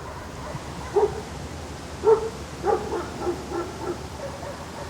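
A dog barking over steady outdoor background ambience: one bark about a second in, then a quick run of about five more, the last few softer.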